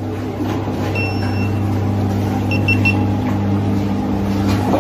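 Steady low machine hum, like an idling motor, with high electronic beeps: one longer beep about a second in, then three short quick beeps.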